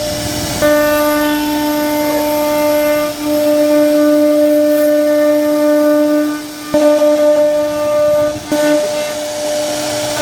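CNC router spindle whining at a steady high speed as it carves a wooden door panel, its pitch dipping briefly a few times as the cutter takes load.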